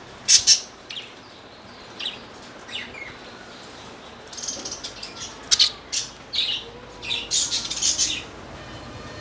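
Birds chirping in short, sharp high-pitched calls: a loud pair just after the start, a few scattered calls, then a busier run of chirps in the second half.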